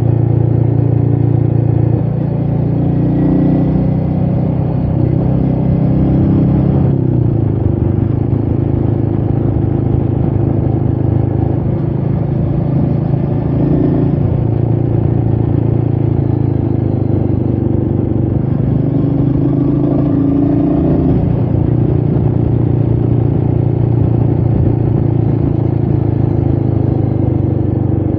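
Royal Enfield Meteor 350's single-cylinder engine running steadily under way, heard over wind noise. The engine note shifts about two seconds in and again around seven seconds.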